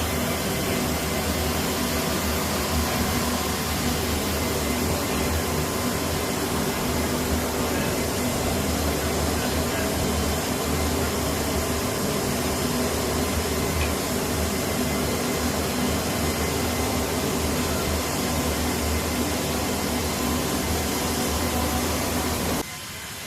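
Steady loud drone of aircraft engines and rushing air, with a low hum under it, cutting off abruptly about a second before the end.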